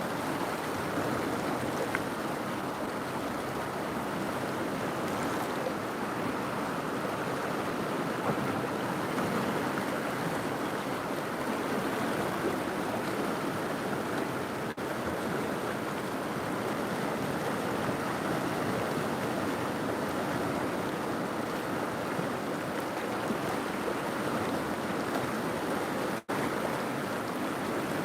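River water flowing steadily, an even wash of noise that drops out for an instant about 26 seconds in.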